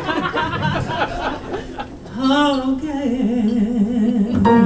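A woman singing into a microphone, holding a note with a wide vibrato from about two seconds in; steady accompanying tones come in near the end.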